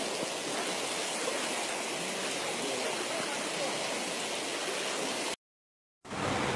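Floodwater rushing steadily across a submerged road. It cuts out abruptly about five seconds in and comes back as the deeper rush of a fast, muddy flood torrent.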